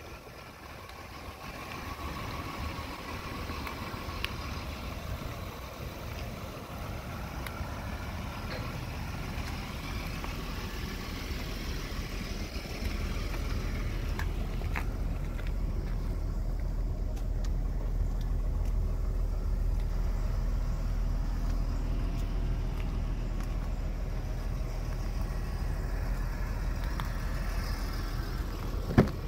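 A vehicle engine idling: a steady low rumble that grows louder about halfway through. Near the end a car door clunks open.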